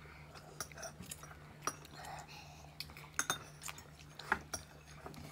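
Metal fork clinking and scraping against a bowl as instant noodles are twirled and lifted, a few scattered light clicks.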